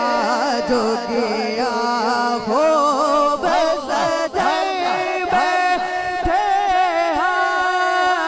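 Naat sung by a male voice, drawing out long ornamented notes that waver up and down in pitch.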